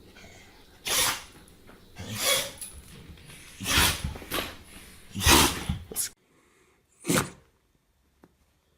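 A pet sneezing repeatedly: a series of short, sharp sneezes about a second apart, then one more after a brief pause.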